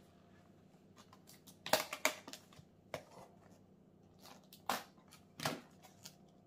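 A knife cutting at the lid edge of a small plastic tub, with about five sharp plastic clicks and scrapes as the blade catches and the tub is handled.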